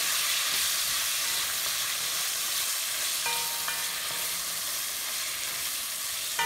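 Saltfish frying in hot oil in a stainless steel pan, sizzling steadily while a utensil stirs it. Brief metallic clinks ring out from the pan about three seconds in and again near the end.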